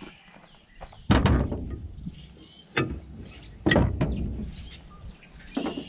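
Two heavy knocks, about a second and three and a half seconds in, with lighter knocks between them and near the end: metal parts of an excavator's swing brake being knocked and worked into place.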